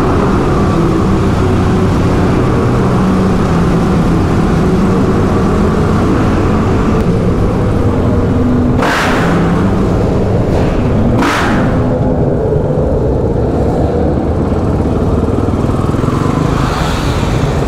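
Supermoto motorcycle engine running steadily at riding speed, ridden through a concrete tunnel and a corrugated metal culvert, with two brief rushing noises midway.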